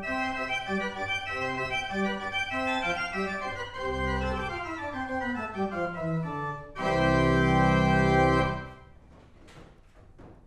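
Pipe organ playing a run of notes that steps downward, then a loud, full held chord about seven seconds in. The chord is released near nine seconds and the room's reverberation dies away.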